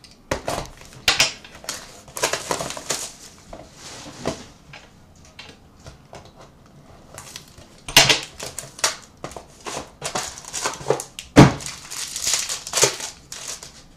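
Plastic shrink wrap crinkling and tearing as a sealed box of hockey cards is unwrapped, with the cardboard box scuffing and knocking as it is handled. The loudest knock comes about eleven seconds in.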